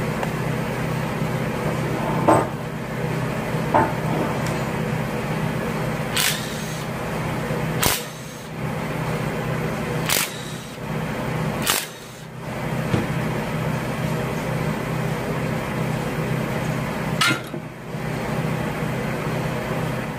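Several short, sharp bursts and clicks from a cordless impact wrench and loose metal parts as the 13 mm bolts holding a 5.7 Hemi's oil pump are run out. A steady low hum runs under them throughout.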